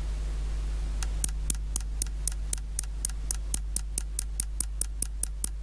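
Unloaded Astec switch-mode power supply ticking at about four ticks a second, starting about a second in, over a steady low hum. Each tick is the over-voltage SCR crowbar killing the output and the supply restarting, because it is running with no load and its output goes over voltage as the input voltage is raised.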